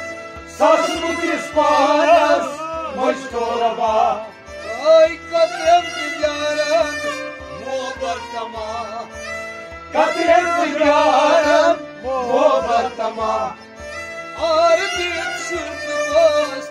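Kashmiri Sufi song: a male voice sings melismatic phrases over sustained instrumental drone tones and a steady low drum beat of about two strokes a second. The loudest sung phrases come about a second in and again about 10 s in.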